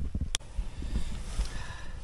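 Movement noise from a person climbing into a car: low irregular thuds and rustling, with one sharp click about a third of a second in.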